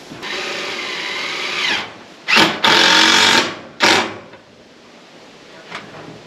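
Power drill driving screws through a steel siding panel into a wooden post, in several runs: one of about a second and a half, a louder run of about a second just past the two-second mark, and a short final burst around four seconds in.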